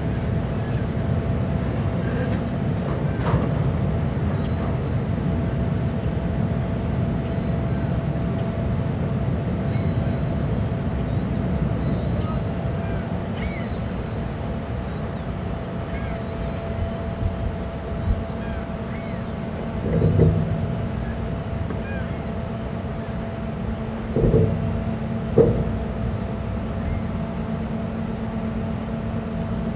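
Machinery of the self-unloading lake freighter Algoma Transport running alongside the wharf: a steady low rumble with a constant hum. A few dull thumps come about two-thirds through, with faint bird chirps over the top.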